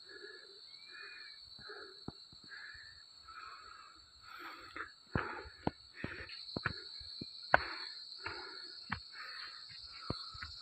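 A person's heavy breathing while climbing a steep rocky path, with scattered footsteps and twig and leaf crackles underfoot. Behind it runs a steady high insect drone that grows louder about six seconds in.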